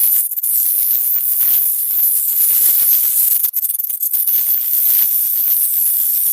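High-pitched alien insect chatter sound effect: a dense, shrill, rattling chitter that sits very high in pitch. It drops out briefly about a third of a second in and again about three and a half seconds in.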